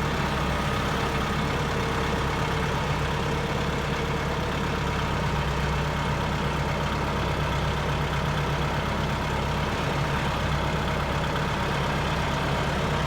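A motor vehicle's engine running steadily at an even speed, a low, unchanging drone.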